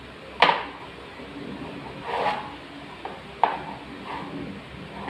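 A hand-held pad scraping over a wall surface in separate rubbing strokes: a sharp stroke about half a second in, a softer one about two seconds in, and a short sharp scrape about three and a half seconds in.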